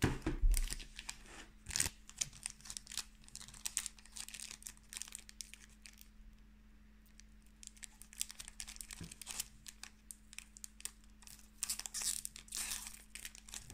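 Foil trading-card booster pack, a Dragon Ball Super Card Game pack, being torn and crinkled open by hand in fits and starts: crackling and tearing near the start and again near the end, with a quieter stretch in between. The pack is hard to open.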